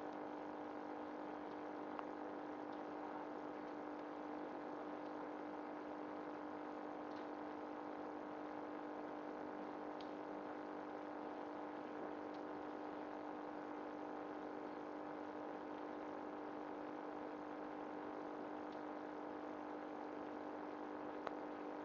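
A steady hum at one constant low pitch with several fainter steady tones above it, and a few faint clicks.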